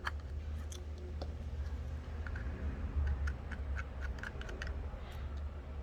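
Faint, irregular light clicks and ticks of a small screwdriver working tiny screws out of a bracket inside an iPhone XR, over a steady low hum.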